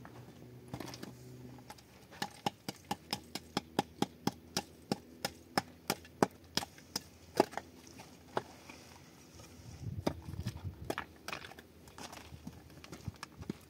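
A tool striking wood: a quick, steady run of sharp knocks, about three or four a second, for some five seconds, then a single knock and a short spell of rougher knocking and rustling near the end.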